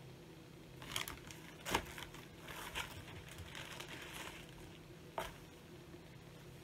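Crinkling and rustling as a cross-stitch project and its fabric are handled, with sharp taps about one and two seconds in and another near five seconds.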